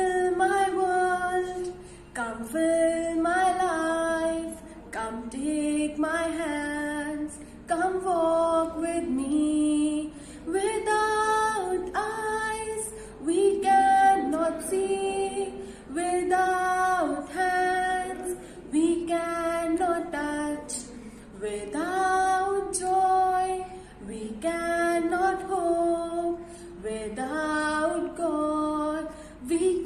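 A girl singing a prayer hymn solo and unaccompanied, in phrases of held notes with short breaths between them.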